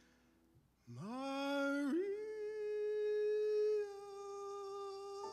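Male tenor voice singing: after a brief pause, a steep upward scoop into a long, steady high held note, a little softer about four seconds in.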